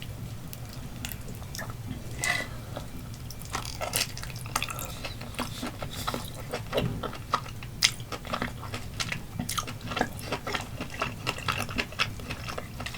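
Close-miked chewing of grilled octopus: irregular wet mouth clicks and smacks as the rubbery meat is bitten and chewed.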